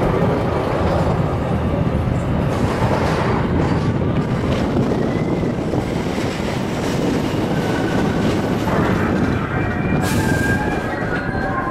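Expedition Everest steel roller coaster train rolling along its track, its wheels rumbling steadily with some high wheel squeal on the curves. A short hiss comes about ten seconds in.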